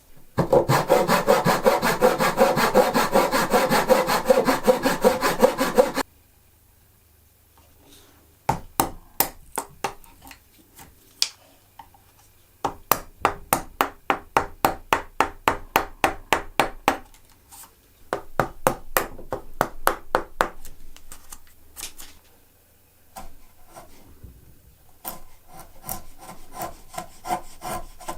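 Hand saw cutting wood in quick back-and-forth strokes: a loud, dense run for the first few seconds, then several shorter bouts of strokes at about four or five a second with brief pauses between them.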